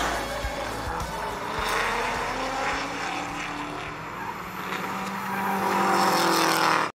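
Drift cars sliding under power: the engines rev up and down while the tyres squeal. The sound cuts off suddenly just before the end.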